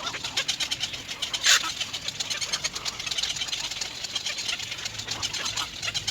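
Nestling birds calling in a rapid, continuous stream of short high chirps, with one louder call about a second and a half in.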